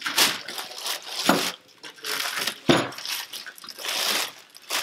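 Plastic wrap crinkling and tearing in irregular bursts as it is pulled off scooter handlebars, with two knocks about a second and a half apart.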